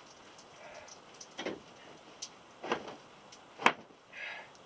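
Three sharp knocks about a second apart, the last the loudest, then a brief rustle of cloth as a towel is pulled off its hook in a wooden shower stall.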